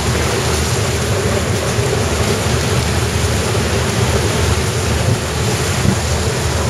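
Steady rushing and churning of floodwater stirred up by a train running along submerged tracks, over a low rumble of the train.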